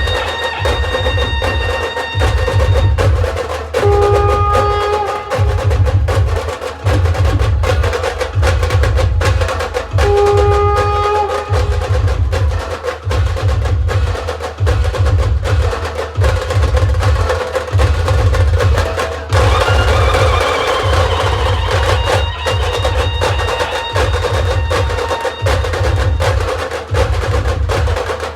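Khandeshi band dhol-tasha drumming: heavy dhol beats under a dense, fast rattle of stick strokes on tasha and small drums. Short held notes from a melody instrument come in a few times.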